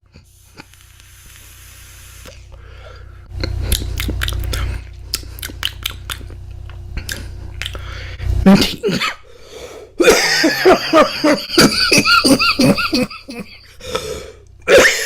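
A man coughing repeatedly after drawing on a vape. A soft hiss comes first, then a single cough about eight seconds in, and a longer coughing fit a couple of seconds later.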